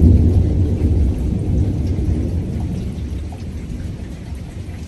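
A long roll of thunder, a deep rumble that slowly dies away, with rain falling under it.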